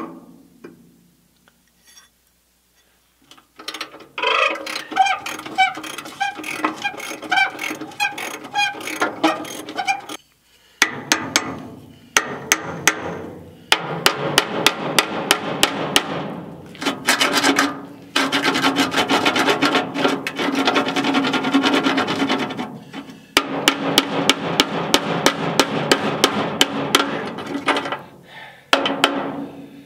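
Small hammer tapping a seized bolt on a cement mixer's steel frame to drive it out. Quick metal-on-metal strikes, several a second, come in runs of a few seconds with short pauses, and the steel rings between blows.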